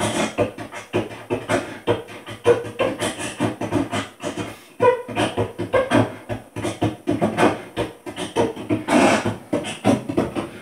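A man beatboxing into a handheld microphone: a fast, uneven run of mouth-made drum hits and clicks, with a few short pitched notes.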